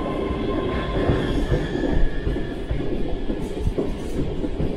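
ScotRail class 385 electric multiple unit pulling out past the microphone: a steady wheel-and-rail rumble with irregular knocks as the wheels cross rail joints. A high whine fades away in the first couple of seconds.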